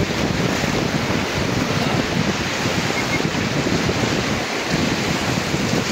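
Steady rush of fast, turbulent river water around a raft, mixed with wind noise on the microphone.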